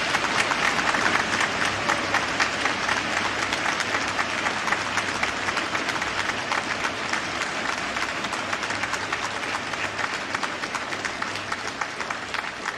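A chamber full of assembly members applauding, a dense steady clatter of many hands that eases off slightly toward the end.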